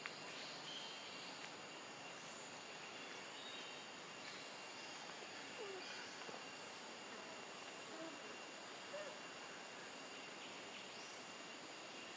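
Quiet outdoor background: a steady hiss with a faint, thin, high steady tone, and a few faint short chirps or squeaks in the second half.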